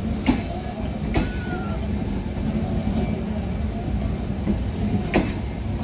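Bangladesh Railway passenger coaches rolling past close by: a steady low rumble, with a few sharp clacks as the wheels cross the rail joints.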